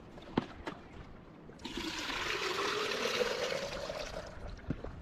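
Milk squirting from a hand-milked teat into a plastic jug: a hissing stream starting about one and a half seconds in and lasting nearly three seconds, with a tone underneath that rises steadily in pitch. Two light knocks come before it.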